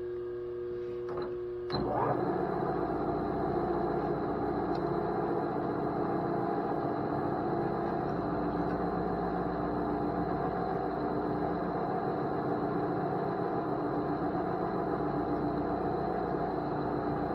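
Milling machine running steadily; about two seconds in the sound steps up and becomes louder and fuller, then holds steady.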